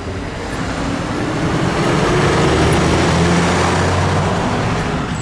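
A heavy road vehicle drives past, its engine rumble and tyre noise swelling to a peak around the middle and fading away.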